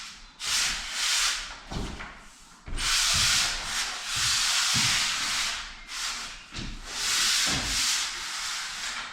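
Pole sander rubbed over a mist-coated plaster wall in long back-and-forth strokes, about one a second, with soft knocks as each stroke turns: a light sand after the mist coat to knock off the nibs before filling.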